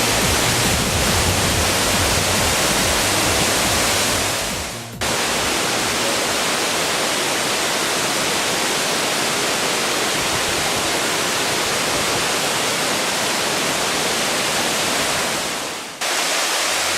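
Waterfall of spring groundwater pouring into a mountain stream: a loud, steady rush of falling and splashing water. The rush fades briefly and cuts back in twice, about five and sixteen seconds in.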